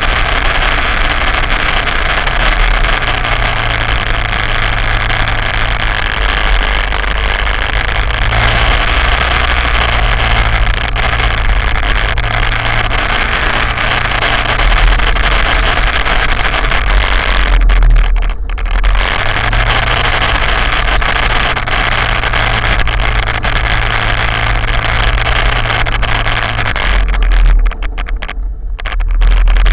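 Quad bike (ATV) engine running steadily on the move, heard from a camera mounted on its front rack, under a constant rush of wind and track noise. The rush drops away briefly about two-thirds of the way in and again near the end.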